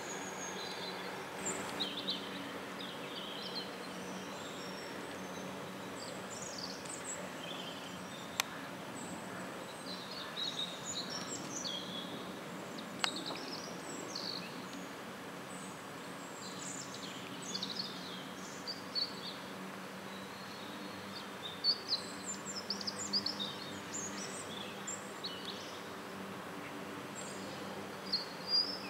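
Small birds chirping and singing in short, frequent phrases over a steady low outdoor background hum.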